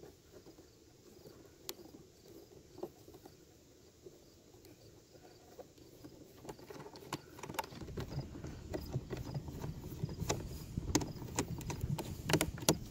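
Hands handling an RC speedboat's hull and hatch: scattered clicks and knocks, sparse at first and then busier and louder over a low rumble from the second half on, with faint insect chirping underneath.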